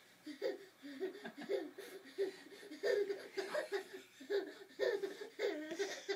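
A baby laughing in a long run of short, high-pitched bursts, about three a second.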